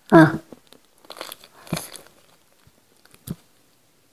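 Close-up mouth sounds of eating goat head meat: a short, loud voiced sound from the eater at the start, then bites and chewing with a few crunchy bites and a sharp click near the end.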